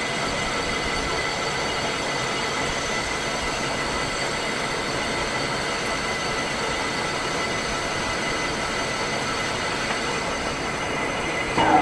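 Metal lathe running steadily, a constant mechanical noise with a few high steady tones, as the spur gear is turned. A brief louder sound falling in pitch near the end.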